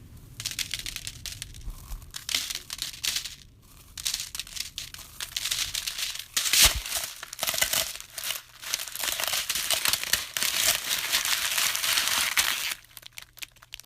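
Close-up crinkling and crumpling of a handled material, going on in irregular bunches with a sharper, louder crackle about six and a half seconds in; it stops about a second before the end.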